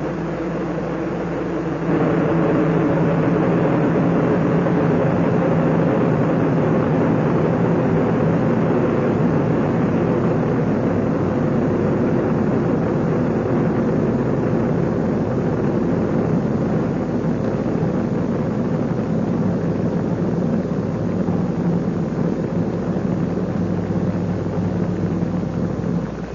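Steady, loud rocket noise of Space Shuttle Columbia's two solid rocket boosters and three main engines during ascent. It grows louder about two seconds in and drops off sharply near the end.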